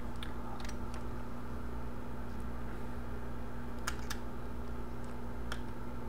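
Steady low electrical hum, with a handful of faint, light clicks and taps as a phone and small tools are handled on the bench. Two of the clicks come close together about four seconds in.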